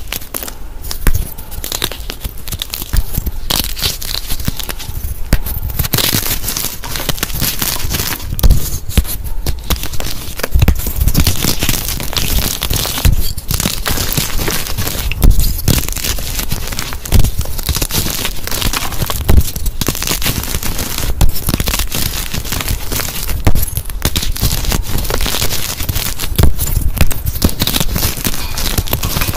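Dyed gym chalk blocks being broken and crushed in the hands: a dense, continuous crisp crunching and crumbling, with louder crunches every couple of seconds.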